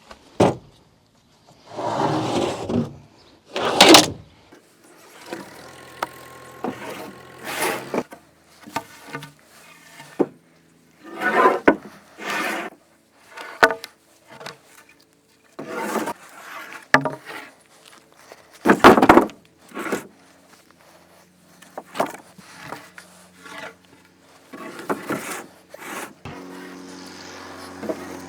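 Wooden lumber boards being handled and loaded: a string of separate knocks, clatters and scrapes of wood. Near the end a vehicle engine starts running steadily.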